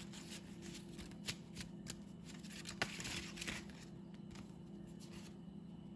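A deck of cards being shuffled by hand: a run of quick papery clicks and rustles, densest about three seconds in.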